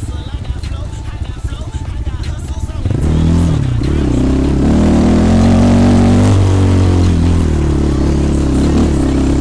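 A 250 cc enduro motorcycle engine runs at low revs, then about three seconds in it revs up loudly and pulls under load. Its pitch rises and drops a few times as the rider works the throttle.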